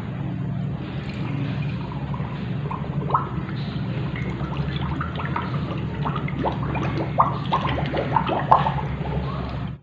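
Milk tea being poured into a glass jar over ice cubes and grass jelly, the ice crackling and clinking against the glass in many short sharp ticks that come thicker in the second half. A steady low hum runs underneath.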